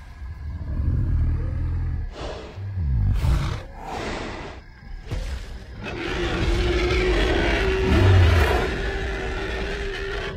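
Film sound effect of a huge dinosaur roaring. A long, loud roar begins about six seconds in and lasts to the end, after deep rumbling and a few sharp hits.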